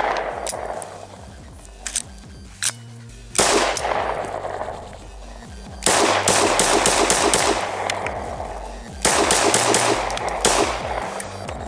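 A series of loud pistol gunshots from a Glock fired by a string pulled on its trigger in a remote firing rig, each shot followed by a long echoing tail. Background music plays underneath.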